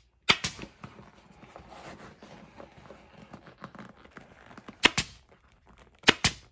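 Pneumatic upholstery stapler firing staples through vinyl into an ATV seat's plastic base. The sharp shots come in quick pairs: two near the start, two about five seconds in and two near the end. Faint rustling of vinyl being handled fills the gaps.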